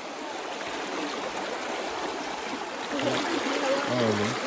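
Shallow stream rushing and splashing over rocks, a steady hiss of running water. A person's voice comes in briefly over it near the end.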